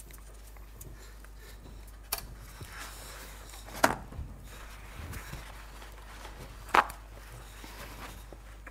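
Three sharp knocks, a couple of seconds apart, the second and third the loudest, over faint room noise and a steady low hum.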